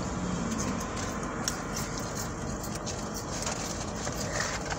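Steady background noise inside a car cabin, with a few faint clicks.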